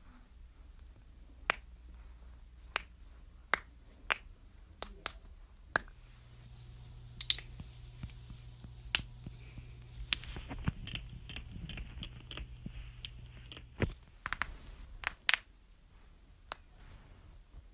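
Joints being cracked: sharp single pops at irregular intervals, some over a second apart, bunching into a quicker run of pops in the second half.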